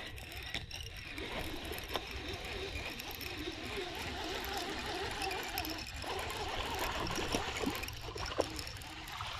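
Baitcasting reel being cranked, a continuous light whirring and rattling as line is wound in.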